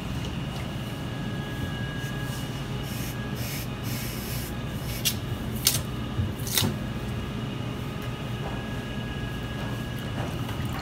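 Wet lamb sausage casing handled by hand and rinsed in a steel bowl of water: soft rubbing and splashing, with a few sharp wet clicks in the middle, over a steady low hum.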